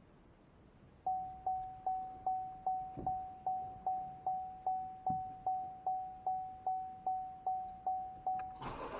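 2020 Chevy Malibu's dashboard warning chime, a single clear tone repeating about two and a half times a second, each chime fading fast, as the ignition is switched on. Near the end the chimes stop and a steady rushing noise takes over.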